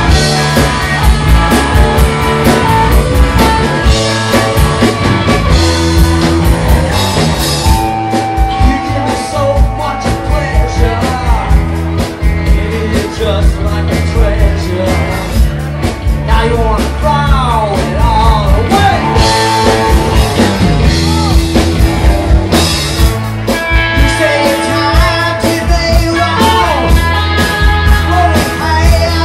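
Live rock band playing: electric guitars over bass guitar and a drum kit, with pitch-bending guitar lines.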